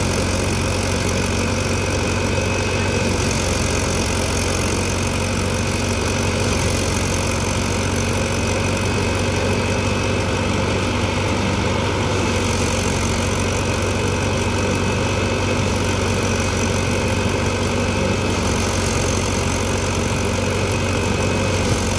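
Tractor diesel engine running steadily under load, driving a PTO-powered thresher whose drum and blower whir as chopped straw is blown out. The hiss of the blown straw swells and fades a few times.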